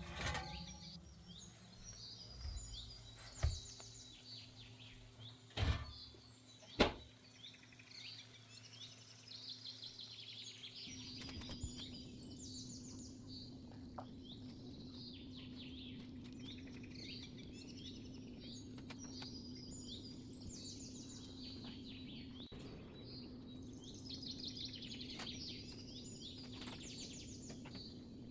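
Small songbirds chirping in quick repeated twitters, faint in the background. Three sharp knocks come in the first several seconds, and a low steady hum starts about a third of the way through.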